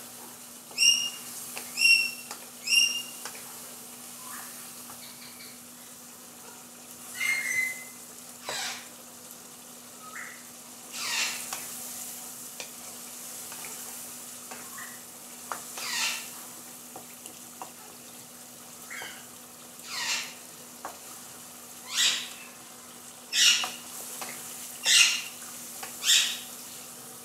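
Beef and tomato masala sizzling as it is bhuna-fried in a nonstick pan, with a wooden spoon stirring and turning the meat so the sizzle surges every second or two. About a second in come three short high chirps, about a second apart.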